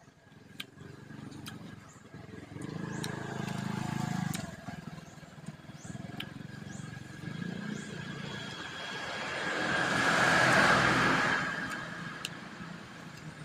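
A motorcycle passing on a road, its sound building to a peak about ten seconds in and then dying away.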